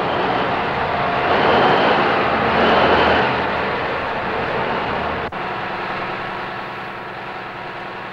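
Cummins KTA2300 turbocharged, aftercooled V12 diesel engine running steadily. It swells louder for a couple of seconds, then eases back. There is a brief click about five seconds in.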